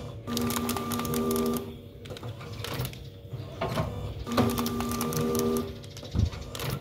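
Small vertical sachet packing machine running through its cycle: a motor hum of just over a second comes twice, about four seconds apart, with rapid clicking and knocking from the mechanism in between. A low thump near the end.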